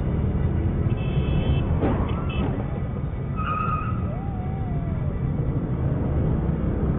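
Steady low rumble of idling scooters and traffic, with a short bang and squeal about two seconds in as a minivan crashes at the intersection. Brief high tones and a wavering voice-like call follow.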